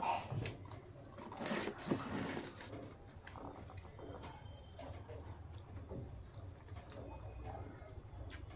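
A person chewing food with wet mouth sounds and small irregular clicks, the clearest in the first two seconds.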